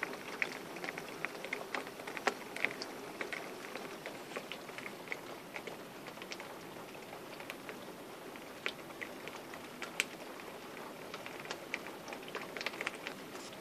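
Rain falling: a steady hiss with many irregular drops ticking close by, the ticks coming thicker near the start and again near the end.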